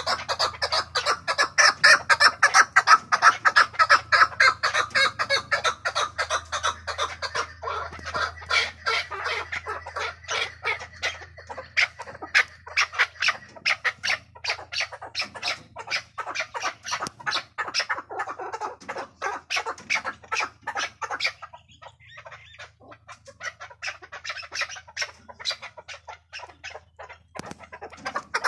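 Chukar partridge calling a long, rapid run of repeated chuck notes, several a second. It goes quieter and sparser for a few seconds near the end, then calls loudly again.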